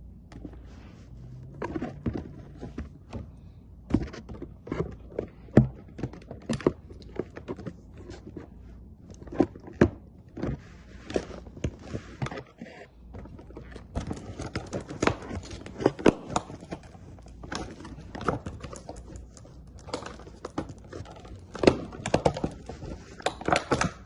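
Cardboard box and plastic toy packaging being handled and pulled apart: irregular knocks, scrapes and crinkling as an action figure is worked free of its box, busier in the second half.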